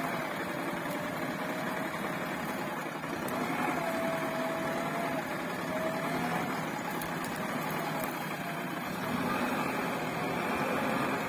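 JCB backhoe loader's diesel engine running and revving as the machine manoeuvres and lowers its raised front bucket. A thin whine slowly wavers up and down in pitch over the engine noise.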